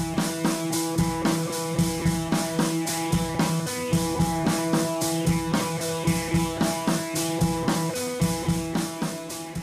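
Music with a steady beat, held notes over regular drum strokes.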